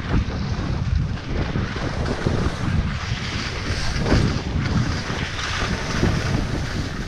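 Wind buffeting a GoPro's microphone during a ski run, with the hiss and scrape of skis sliding over groomed snow. The noise is steady with a low rumble and rises and falls slightly.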